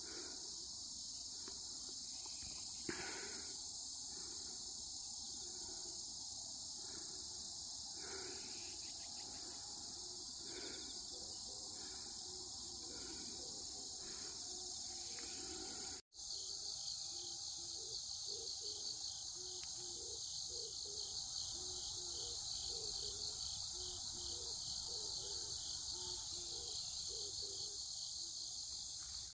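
Steady high-pitched chorus of insects chirring in the grass. It breaks off for an instant about halfway, then resumes with a quicker pulsing texture.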